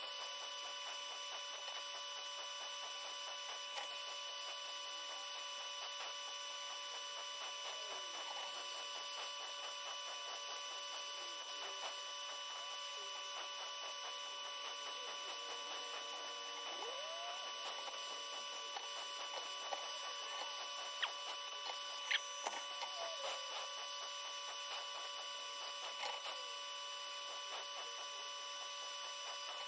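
A machine running steadily with a constant hum and a fast, even clatter, and a couple of sharp clicks about two-thirds of the way through.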